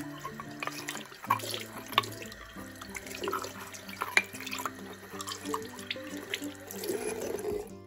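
Water running from a tap into a sink, with splashes and sharp knocks as things are rinsed under it in plain cold water; the water sound cuts off suddenly near the end.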